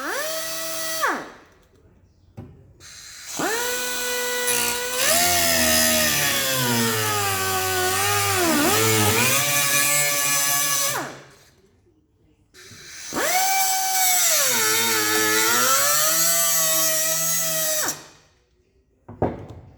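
Small power grinder run in three goes: a brief run near the start, then two long runs of about eight and five seconds. Its whine sags in pitch and recovers as it is pressed onto the steel panel being repaired.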